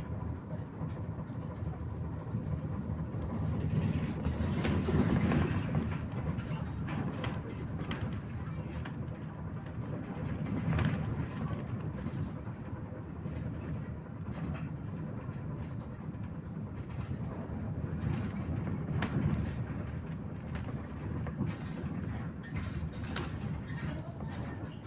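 Inside a moving MAZ 103 city bus: a steady low rumble of engine and road, with the light rattles and knocks of the body and fittings, swelling in loudness a few times.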